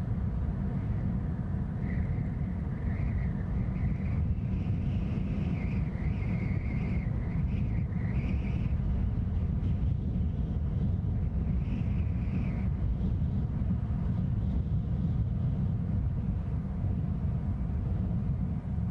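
Steady low outdoor noise, with a faint wavering higher-pitched sound coming and going from about two to twelve seconds in.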